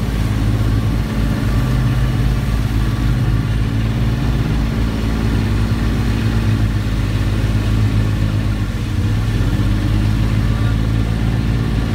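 An engine running steadily at a constant speed, with a loud low hum.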